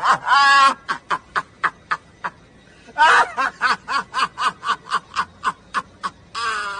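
A man laughing hard: a loud cry at the start and again about three seconds in, each followed by a rapid run of short breathy laugh pulses, about five a second.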